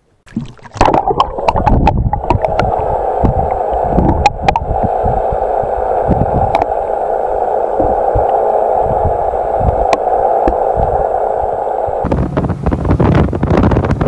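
Muffled rush of water heard through an underwater camera's housing, a steady dull hiss with scattered knocks and clicks. About twelve seconds in it gives way to wind buffeting the microphone.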